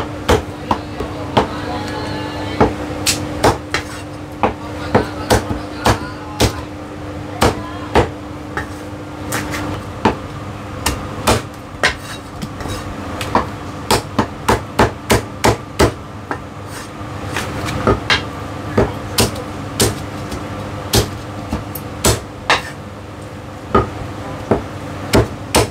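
Heavy Chinese cleaver chopping roast chicken and char siu on a thick round wooden chopping block. It makes sharp, irregular chops, some single and some in quick runs of several.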